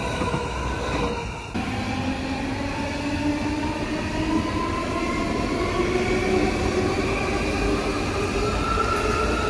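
Electric train with a steady running rumble and several whining tones from its drive. After a sudden break about a second and a half in, the whine slowly rises in pitch as the train gathers speed.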